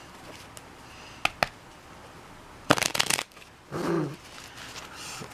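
A deck of playing cards being shuffled: two light snaps, then a quick riffle about three seconds in.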